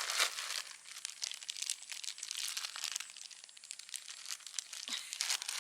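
Thin plastic bags crinkling and rustling in many quick, irregular scrunches as they are handled and opened.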